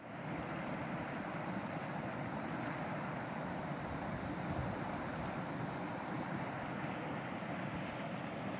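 Steady rushing of a fast, shallow river running over rocks and through riffles.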